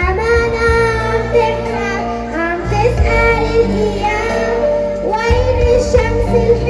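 A young girl singing a song in Arabic over a recorded backing track, holding long notes as the bass line steps beneath her.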